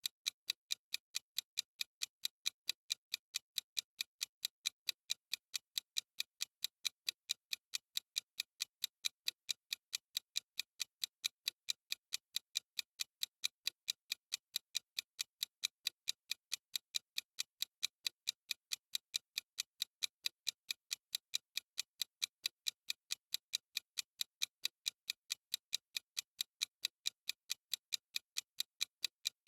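Countdown timer's clock ticking sound effect: sharp, evenly spaced ticks at a steady rate of a few a second.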